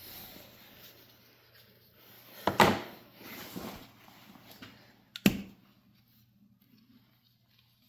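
Engine parts being handled during a teardown: two sharp knocks, about two and a half and five seconds in, with rattling and shuffling between them.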